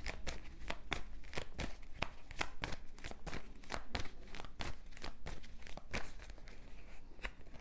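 Tarot cards being shuffled and handled: a rapid, irregular run of crisp card clicks and flicks that stops just before the end.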